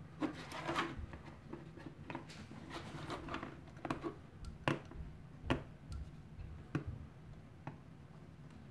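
The small relay inside an all-sun EM3252 multimeter clicking several times at irregular intervals as a magnet is moved over the meter, its switching set off by the magnet's field. Softer plastic handling and rubbing sounds come between the clicks.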